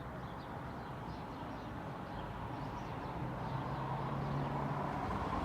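A car passing on a nearby street, its engine and tyre noise swelling to loudest about four seconds in, over faint bird chirps.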